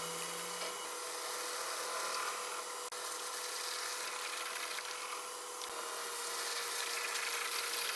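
A woodturning gouge cutting the skin off the outside of a turnip spinning on a lathe: a steady scraping hiss over the lathe's steady hum.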